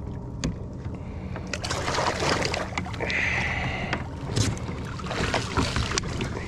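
Water splashing and sloshing against a fishing kayak's hull as a hooked drum is held and lifted at the side, with scattered clicks and knocks of gear on the hull and a burst of splashing about two seconds in.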